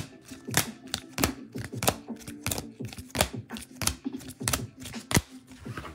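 Rigid clear plastic trading-card cases clicking and clacking against one another as they are flipped through one at a time, at an irregular rate of about three or four clicks a second.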